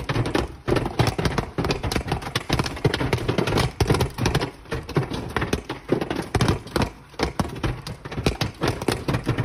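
Large hailstones pelting a car, heard from inside the cabin: a dense, irregular clatter of hard knocks, many a second.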